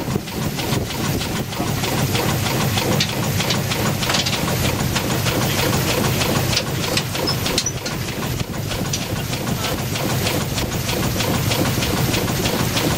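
Small steam launch engine running, with a quick rhythmic clatter of strokes over a steady hiss of steam.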